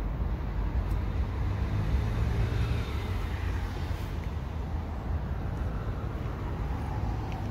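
Steady rumble of road traffic, with one vehicle's sound falling slowly in pitch as it passes by.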